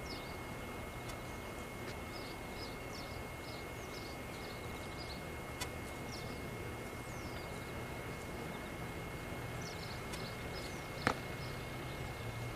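Steady outdoor background noise with a small bird's short, high chirps repeating in little runs, and a sharp click about eleven seconds in.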